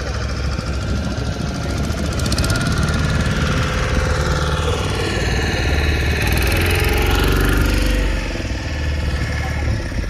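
Wooden motorboat's engine running steadily while the boat is underway, a loud continuous rumble heard from on board.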